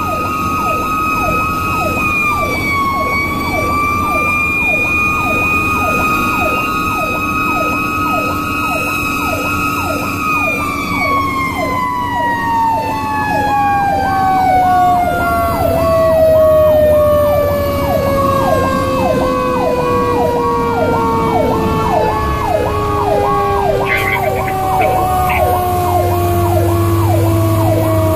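Fire truck sirens heard from inside the cab of a 2002 Pierce Lance rescue truck. An electronic siren repeats a quick falling sweep about twice a second. Under it, a mechanical siren holds a steady high wail, then about ten seconds in begins winding down slowly in pitch, with the truck's engine and road noise beneath.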